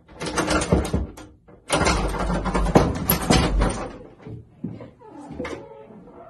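Wooden interior door rattled and shaken at its knob in two loud, clattering spells, the second one longer. A short animal-like cry follows near the end, as the door swings open.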